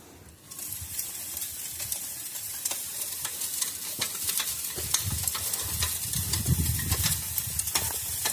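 Sand sieving machine running, sand grains hissing and rattling through its mesh screen over a low rumble. The sound picks up about half a second in and the rumble grows louder in the second half.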